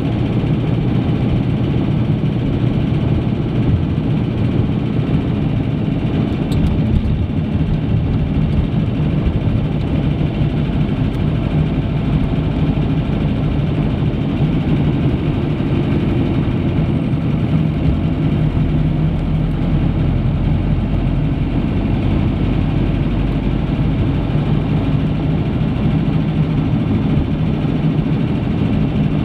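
Car driving, heard from inside the cabin: steady engine and tyre noise, mostly low in pitch.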